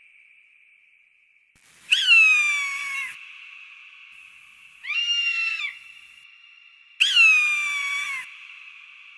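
A falcon calling three times: drawn-out, high-pitched screeching calls of about a second each, each rising sharply at the start and then sagging slightly in pitch, with the middle call shorter.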